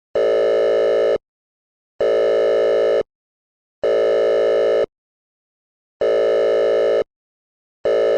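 Electronic beep tone repeating: five identical buzzy beeps, each about a second long, roughly every two seconds, with complete silence between.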